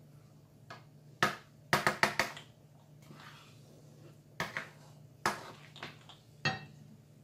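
Kitchen handling sounds: a scattering of sharp taps and clinks, with a quick run of them about two seconds in, from utensils and containers being handled at the stove, over a faint steady hum.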